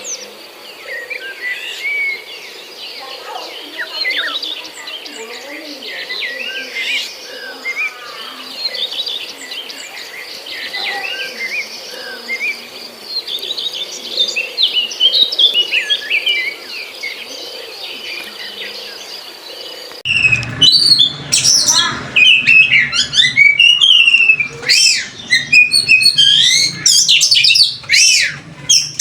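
A pet bird chirping and twittering in quick, varied calls and whistles. About twenty seconds in, the chirping becomes much louder and closer.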